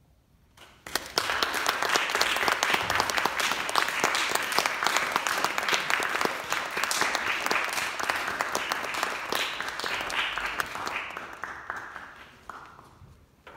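Audience applauding, starting suddenly about a second in, then thinning out to a few scattered claps near the end.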